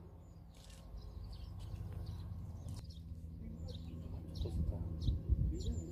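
Small birds chirping, short high calls every second or so, over a steady low hum, with a few low thumps near the end.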